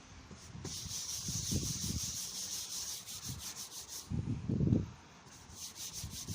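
Toothpaste and baking-soda paste being rubbed over a plastic car headlight lens in quick back-and-forth strokes, a gritty scrubbing hiss as the mild abrasive polishes off the yellowed haze. The rubbing starts about a second in and eases off past the middle, with a few dull low bumps toward the end.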